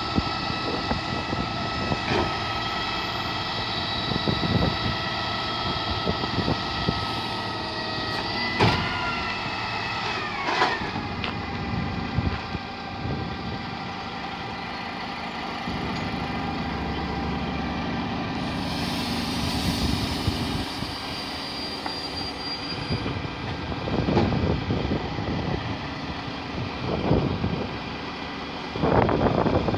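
Refuse lorry's rear-loader bin lift and compactor hydraulics whining over the truck's engine, with wheelie bins clanking against the lifter. The whine holds steady, then drops in pitch and stops about ten seconds in with a couple of clanks, followed by a lower steady drone and a few more knocks near the end.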